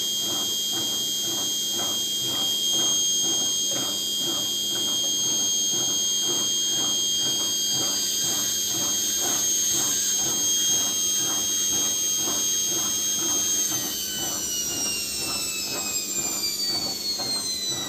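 Bosch washing machine's brushed motor, fitted with new carbon brushes, spinning at top speed with a steady high whine and a faint regular pulsing, run up to check the commutator for sparking. About 14 s in it begins to slow, the whine falling in pitch.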